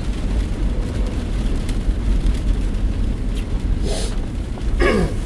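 Steady low road rumble inside a moving car's cabin. Near the end a short sound drops in pitch.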